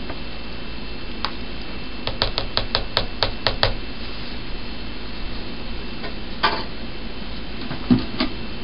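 A quick run of about nine sharp plastic clicks, roughly six a second, then a few single knocks: a white plastic stirring spoon and an orange plastic cooler of corn mash being handled.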